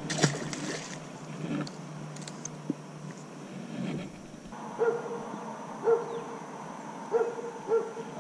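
A dog barking in short single barks, about one a second, starting about halfway through, after a brief splashing rustle at the start.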